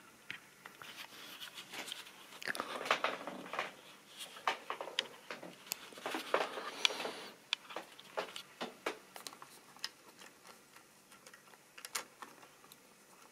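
Faint, irregular clicking and rustling of plastic model railway wagons being handled on the track, busiest in two stretches a few seconds in.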